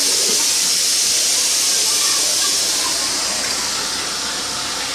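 A steady, loud hiss that eases slightly in the second half.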